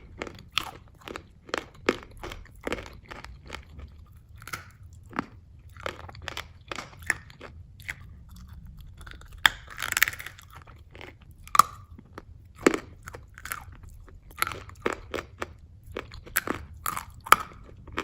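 A person chewing crunchy food close to the microphone: an irregular run of crisp crunches, a few a second.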